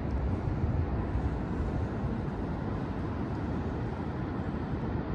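Steady low rumble of wind buffeting the microphone, with no distinct events.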